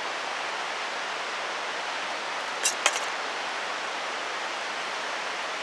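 Mountain stream rushing steadily, with two sharp clicks close together about two and a half seconds in.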